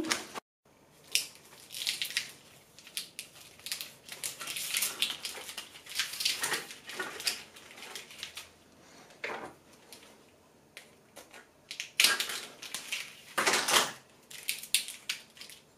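Black corrugated plastic split loom tubing being handled and fitted over cabling: irregular crinkling and clicking, with a couple of louder rustles near the end.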